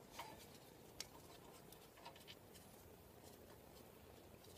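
Near silence with a few faint, scattered metallic clicks and taps: brake caliper bolts and parts being handled and started by hand.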